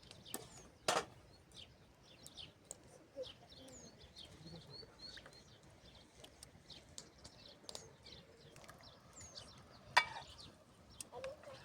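Small birds chirping and twittering in quick, short calls, with two sharp knocks, one about a second in and a louder one near the end.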